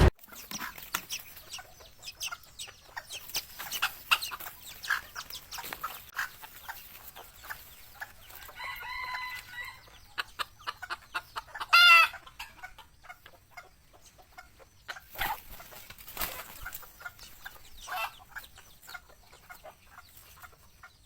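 Chickens clucking and calling, over many short clicks and taps. There is a drawn-out pitched call around nine seconds in, and a loud call about twelve seconds in.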